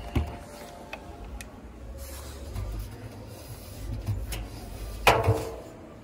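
Front-loading washing machine door being handled: a sharp latch click at the start, then a louder clunk with a short ringing tail about five seconds in, over a low steady store hum.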